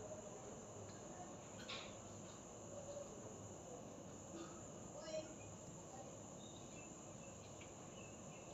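Faint steady high-pitched insect chirring, with a couple of soft clicks and a few brief faint chirps.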